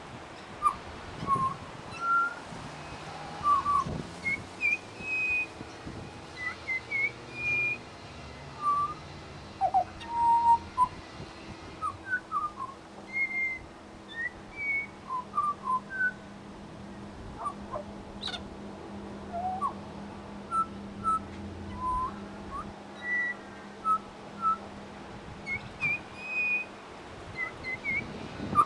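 Pied butcherbird singing: a long run of short, clear whistled notes, some sliding up and some down, in irregular phrases.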